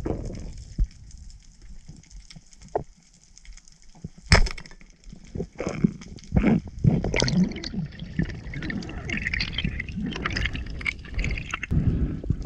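Underwater water movement and gurgling heard through a diver's camera, with a single sharp crack about four seconds in as the speargun fires. Irregular knocks and swirling water follow.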